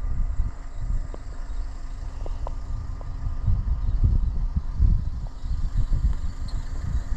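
Low, uneven rumble of a moving vehicle, surging and dropping, with a faint steady hum above it.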